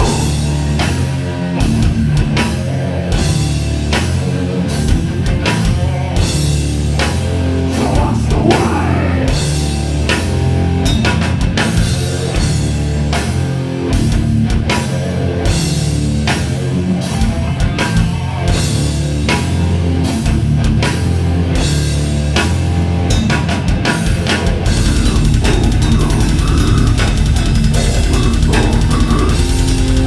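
Death metal band playing live: heavily distorted electric guitars and bass under fast, dense drum-kit hits. Near the end the low end settles into a sustained low note.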